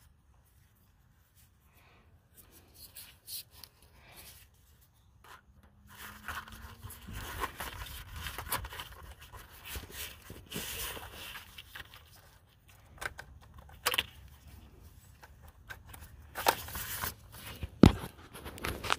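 Handling noise: after a nearly silent start, intermittent scraping, rustling and a few sharp clicks as an air line is worked into the brass quick-connect fitting on the engine's solenoid valve. The sharpest clicks come in the last few seconds.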